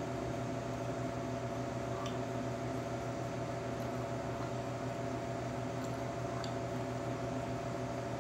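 Steady machine hum of laboratory equipment: a low drone with several constant tones above it, with a few faint light clicks.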